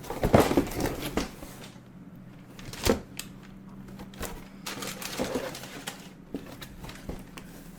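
A long box being handled and opened: rustling and scraping with small clicks, a sharp knock about three seconds in, and more rustling of the contents around the middle.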